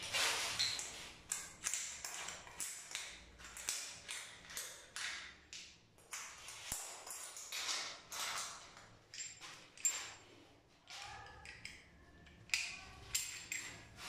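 Chrome shower-mixer fittings being handled and fitted by hand: a run of light metallic clicks and taps, several with a short high ring.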